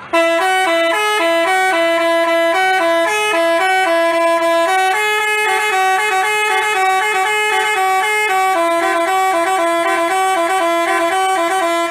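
Telolet basuri multi-tone bus horn playing a melody of quick stepped notes.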